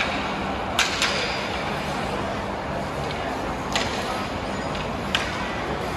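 Ice hockey sticks and puck clacking, about four sharp hits, two close together near the start and single ones later, over a steady hall noise.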